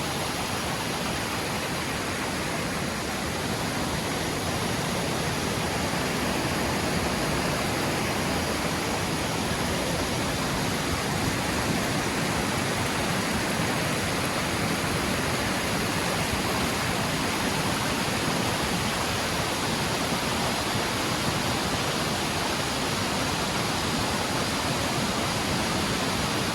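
Waterfall in full spate, a steady rushing roar of falling water.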